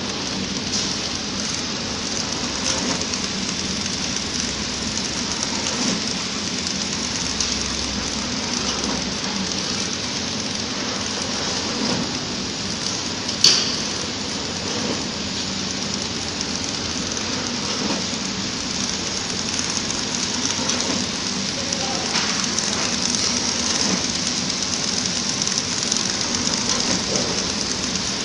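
Horizontal flow-wrap packing machine running: a steady, even mechanical noise from its conveyor and wrapping section, with one sharp click about halfway through.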